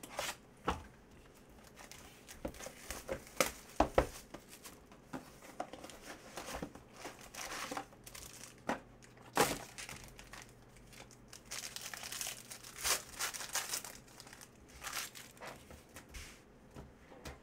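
Foil wrappers of Panini Prizm football card packs crinkling and tearing as the packs are pulled from the box and ripped open by hand, with rustling throughout and louder sharp crackles about four and nine and a half seconds in.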